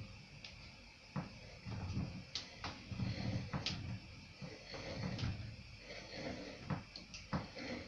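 Hand-cranked jar-lid seaming tool being turned around the tin lid of a three-litre glass jar, sealing it: irregular metallic clicks and low knocks as the roller crimps the lid onto the rim.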